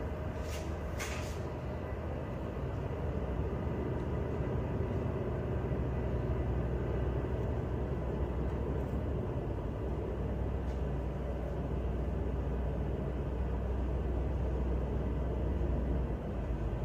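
A tug's diesel engines and thrusters running, a steady low drone heard inside the wheelhouse as the tug works against a ship's hull. The drone grows a little louder after a few seconds and eases off near the end; a couple of faint clicks come about a second in.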